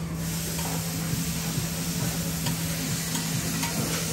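Food sizzling on a hot teppanyaki griddle, the hiss breaking out suddenly right at the start and running steadily, with a few light clicks of a metal spatula on the griddle.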